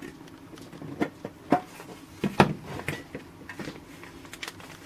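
Small metal tin being handled, set down and its hinged lid opened: a scatter of light clicks and knocks of tinplate, the strongest about two and a half seconds in.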